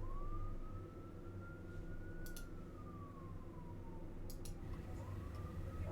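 Siren wailing faintly, a single tone that slowly rises, falls, and near the end begins to rise again, over a steady low hum, with a couple of faint clicks.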